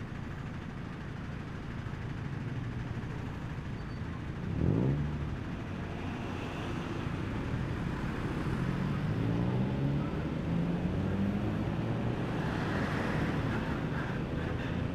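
Motorbike engine running at low speed in slow traffic, its pitch rising and falling as it speeds up and eases off, with road noise. There is a short louder blip about four and a half seconds in.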